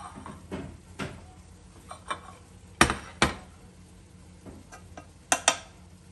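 A wooden spoon scooping cooked rice from a pot, with dishes and the spoon clinking and knocking against the pot: a string of sharp knocks, the loudest two pairs coming about three seconds in and near the end.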